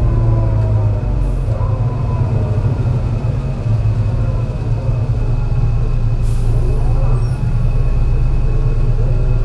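MAN NL202 CNG bus under way: its engine drones steadily while the ZF Ecomat five-speed automatic gearbox whines up and down in pitch. The engine has a bad misfire. Two short hisses come about a second in and past the middle.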